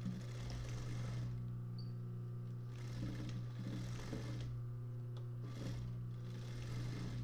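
Industrial sewing machine with its motor humming steadily, broken by several short runs of stitching as the needle goes back and forth, darning denim.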